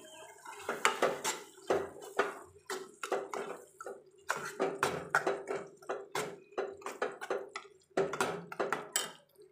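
Metal spoon scraping and knocking against a metal kadai as tomato puree is stirred into fried onion masala: a run of irregular clinks and scrapes, about two to three a second.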